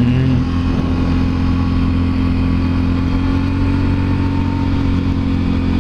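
Can-Am Renegade 1000 ATV's V-twin engine running at a steady speed while being ridden.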